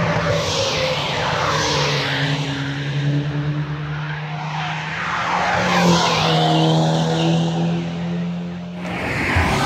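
Fast cars' engines running hard at speed, a steady engine note that swells about six seconds in. An edit near the end cuts to a different car's engine sound.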